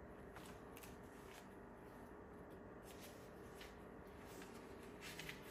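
Faint rustles and soft paper flicks of a book being handled, its pages moved, several short strokes with a little cluster near the end, over a faint steady hum.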